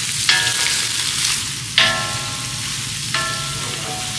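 Chopped chicken gizzards and onions sizzling in hot ghee in a steel karahi while being stirred with a wooden spoon. Three times, about a second and a half apart, the spoon knocks the karahi, which rings briefly; the second knock is the loudest.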